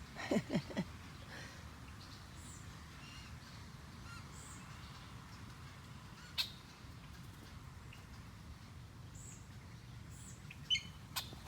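Small birds chirping sparsely: a few short high calls scattered through, over a faint steady hiss. There is a cluster of short falling sounds just after the start, and two sharp clicks, one about halfway and one near the end.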